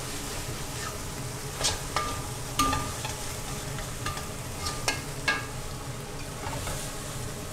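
Chicken frying with a steady sizzle in a stainless-steel wok while a metal spatula stirs and turns it. The spatula scrapes and clinks against the wok every second or so.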